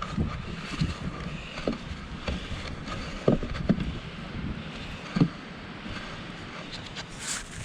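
Snow shovel scraping and knocking on the driveway as snow is cleared, in irregular strokes, with a few sharper hits about three and five seconds in. Low wind rumble on the microphone runs under it.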